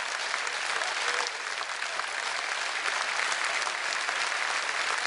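Audience applauding steadily, a dense clatter of many hands clapping in a hall.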